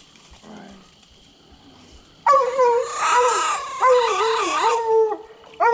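Hunting hound baying: loud, long, wavering howls start about two seconds in, after faint crickets.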